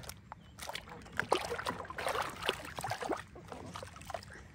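Soapy water sloshing and splashing in a plastic basin as hands scrub a baby monkey, in irregular small splashes.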